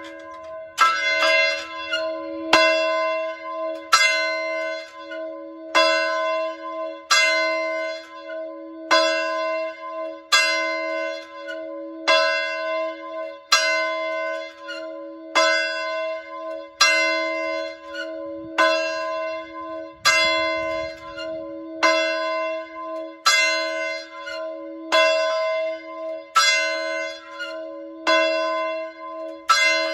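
Large fire alarm bell tolling steadily, a stroke about every one and a half seconds with slightly uneven spacing, each stroke ringing on into the next. It is sounding a volunteer fire alarm call.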